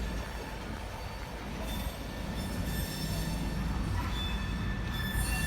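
Freight train cars rolling past with a steady low rumble of wheels on rail. About four seconds in, a thin, steady high metal-on-metal squeal comes in over the rumble.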